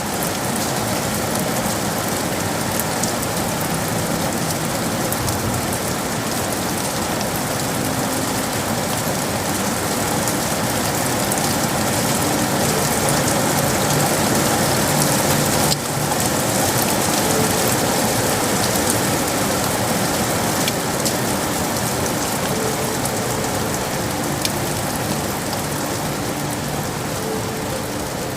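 Steady city rain falling, a dense even hiss that holds at one level throughout.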